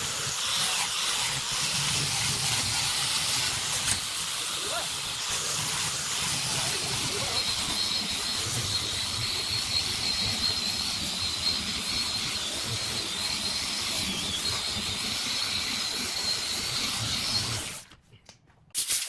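Handheld angle grinder with a sanding disc running and sanding across a wooden board: a steady hiss with a high whine through the middle. It cuts off suddenly shortly before the end.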